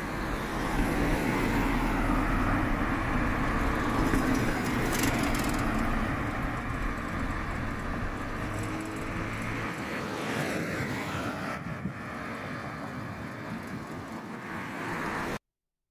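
Road vehicle noise, a steady rumble that eases off about ten seconds in and cuts off abruptly near the end.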